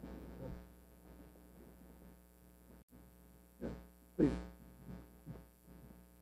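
Quiet room tone with a steady electrical mains hum through the sound system. Two short, faint voice sounds come about three and a half and four seconds in.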